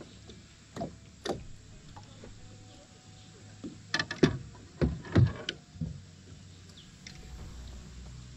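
Scattered knocks and clicks of fishing rods and gear being handled in a small boat, with several in quick succession about four to six seconds in.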